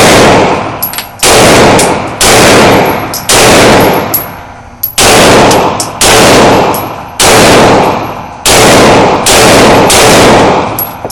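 A 9mm handgun firing about ten shots at an uneven pace, roughly one a second, each shot very loud with a long echoing tail.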